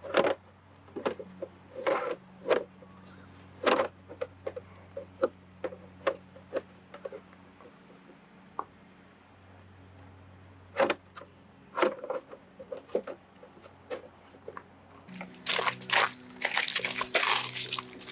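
Hard plastic clicks and knocks as a CIPA clip-on tow mirror housing is worked onto a Toyota Tundra's side mirror, with irregular taps throughout. Near the end there is a couple of seconds of scraping and rubbing as the shell is pushed into place.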